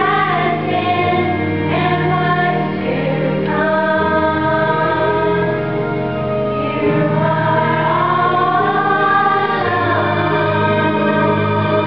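A young women's vocal ensemble singing a gospel song in harmony, holding long notes, over a low sustained accompaniment.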